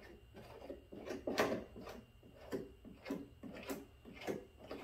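Plastic glue squeegee scraping across a tank patch as it spreads thick black adhesive, in short repeated strokes about twice a second starting about a second in.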